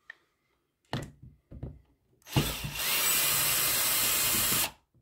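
Power drill with a long screwdriver extension bit running for about two seconds, backing out one of the screws that hold the meat grinder's gear-housing cover; a few short knocks come first.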